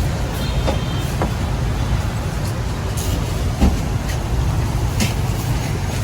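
Busy market street ambience: a steady low rumble of vehicle engines, with scattered short knocks and clicks, the loudest a thump a little past the middle.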